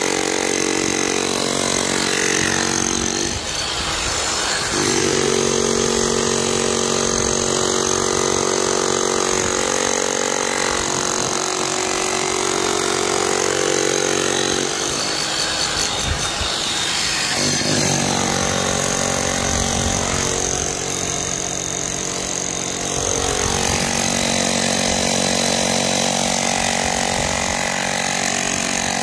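Electric demolition hammer chiselling out a deteriorated concrete floor, running in long steady bursts with two short breaks, about a quarter and about halfway through, and a few knocks during the second.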